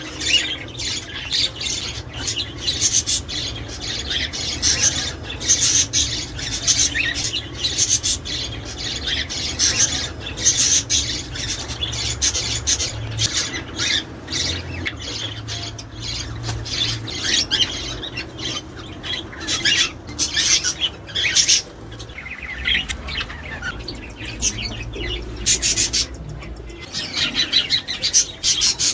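A flock of budgerigars chattering, with many high chirps and squawks overlapping without a break.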